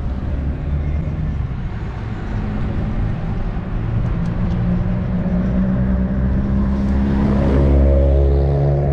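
Street traffic heard from a moving bicycle: a continuous low rumble of road noise, with a motor vehicle's engine hum growing louder and closer from about seven seconds in, its pitch rising slightly.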